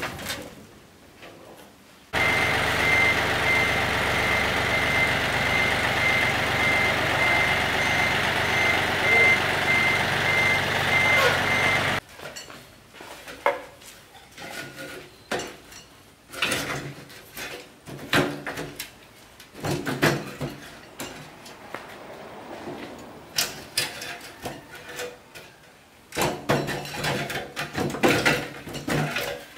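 About ten seconds of loud, steady machine noise with a pulsing high beep, starting and stopping abruptly. Then scattered metal clanks and knocks as the hopper lid and casing of an old crusher are handled.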